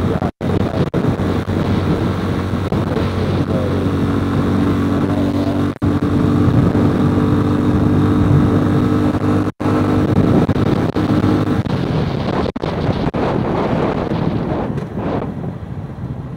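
RPS Condor Grom-clone mini bike's small single-cylinder four-stroke engine running at a steady cruising speed, with wind noise on the microphone. About eleven seconds in, the engine note drops away and grows quieter as the bike slows. The sound cuts out for an instant three times.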